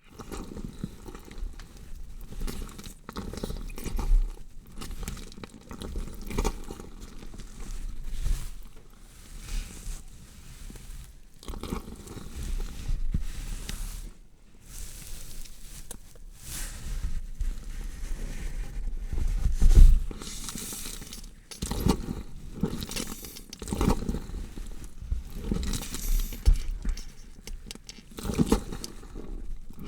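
Horror sound effect of a body being dissected: irregular tearing, cutting and crunching of simulated flesh, with a loud hit about twenty seconds in.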